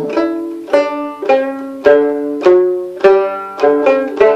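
Sanshin, the Okinawan three-stringed snake-skin lute, played solo, one plucked note at a time, about two notes a second, each ringing on until the next.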